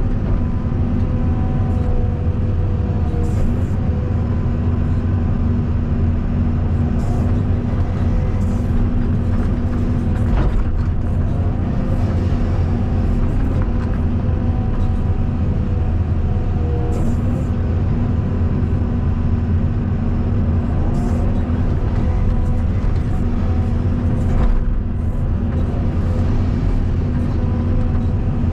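Caterpillar 320 D2 hydraulic excavator's diesel engine running steadily at working speed, a constant drone with a few faint ticks.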